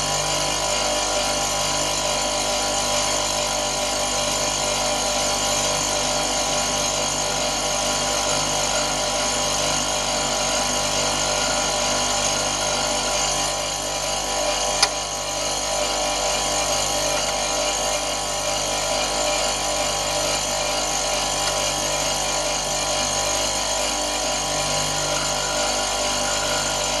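Bench grinder motor driving a wax lathe, a steady hum with many tones, while a hand-held boring tool cuts the inside of a spinning wax ring blank. A single sharp click about halfway through.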